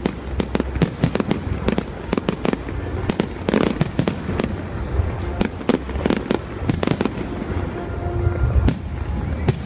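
Aerial fireworks going off overhead: several sharp bangs a second at irregular spacing, over a continuous low rumble.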